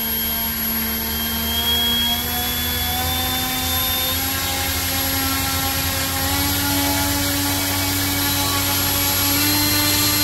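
Battery-powered electric motor spinning a 3D-printed three-bladed 11x6 propeller on a thrust stand: a steady whirring hum whose pitch steps up several times as the throttle is advanced from half toward three-quarters.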